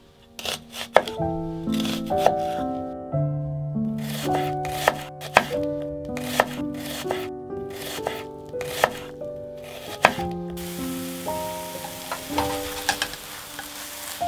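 Chef's knife chopping an onion on a wooden cutting board: irregular sharp knocks of the blade striking the board, over background music with sustained notes. About ten seconds in, a steady sizzling hiss of batter frying in a pan comes in.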